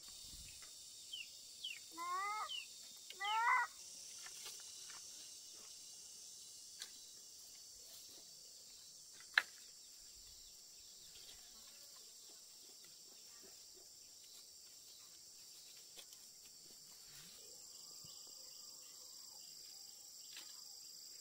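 Insects chirring steadily, with two short animal calls a couple of seconds in and one sharp click about nine seconds in.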